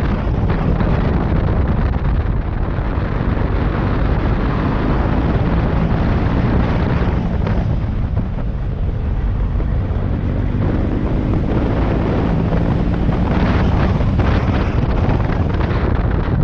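Motorcycle engine running steadily under way, with heavy wind noise buffeting the microphone.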